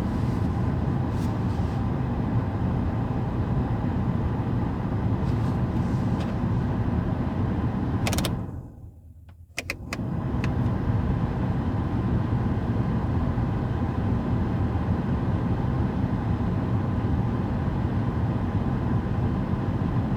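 Pickup's cabin HVAC blower fan blowing steadily on high, a smooth rush of air with no rattle now that the dry leaves rubbing the fan have been cleared from its housing. About eight seconds in it winds down into a brief lull with a few switch clicks, then comes back up to full.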